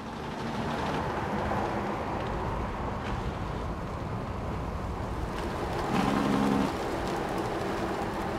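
A vehicle engine running steadily with a rumbling noise, and a brief low tone about six seconds in.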